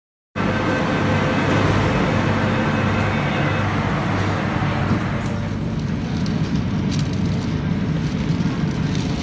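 Steady running hum inside a Korean-built MTR Tung Chung Line train car at a station, with several steady tones in it. It cuts in abruptly at the start, and some of the tones drop away about four seconds in.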